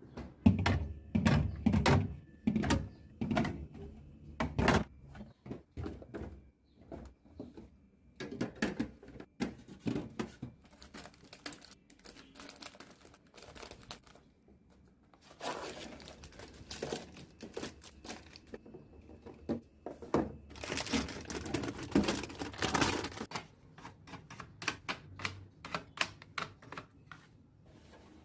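Fridge restocking: plastic containers and packaging clicked, tapped and set down in quick succession, with two longer stretches of crinkling wrappers in the second half.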